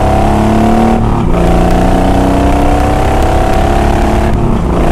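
Honda VTX1800 V-twin engine under hard acceleration in a 0 to 60 run. Its pitch rises steadily, dips at a gear change about a second in, then climbs again through the next gear until another shift near the end, with wind noise over it.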